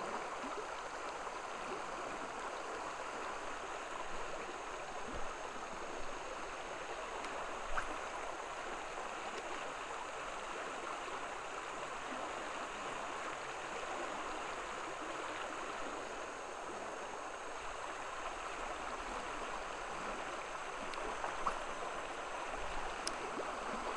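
Steady rush of flowing river water, with a few faint clicks along the way.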